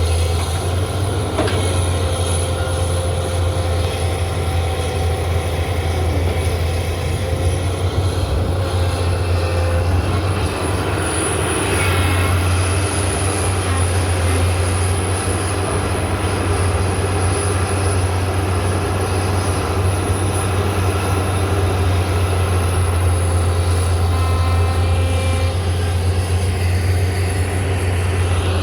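Excavator's diesel engine running steadily, a constant low drone with a thin high whine over it.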